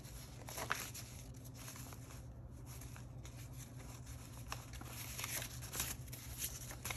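Paper dollar bills rustling and crinkling as a stack is counted through by hand, in a series of short flicks.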